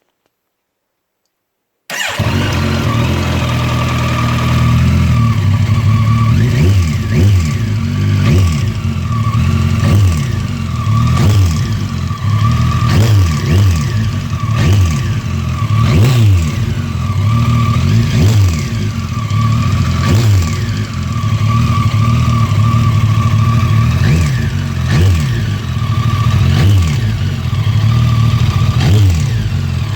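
Kawasaki ZX-14 motorcycle's inline-four engine starting about two seconds in, then running and being revved in repeated short blips, with a steady high whine over it. The owner puts it forward as an engine knock.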